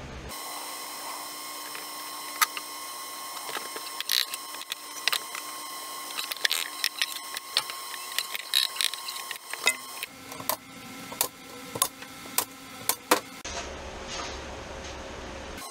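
Workshop handling sounds from assembling a plywood cabinet: many scattered knocks and clicks of panels and tools, with a couple of sharper, louder knocks, over a steady background hum. The sound changes abruptly twice near the end.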